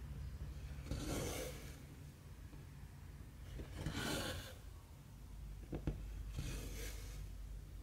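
Cross-stitch thread being drawn through 11-count stamped cross-stitch fabric: three soft rasping pulls, about one every three seconds, with a couple of light clicks just before the third.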